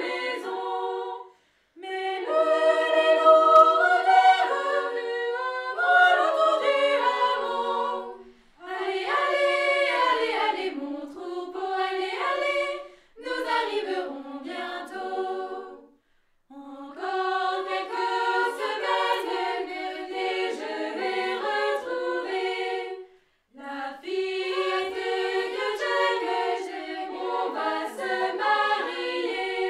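Scout choir singing a cappella in several-part harmony, in phrases of a few seconds with brief silent breaths between them.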